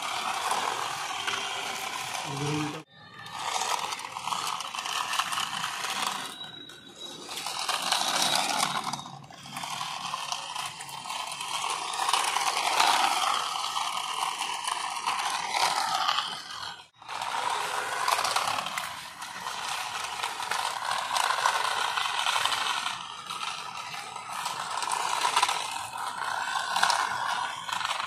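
Battery-powered toy RC jeep's small electric drive motor and gearbox whirring and grinding as it drives, the whine surging and falling back with the throttle. It cuts out briefly three times.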